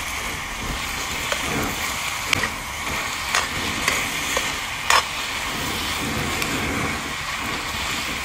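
Chunks of offal and fat sizzling in a wide steel pan over a gas burner while being stirred with a metal spatula. The steady frying hiss is broken by several sharp clacks of the spatula against the pan, the loudest about five seconds in.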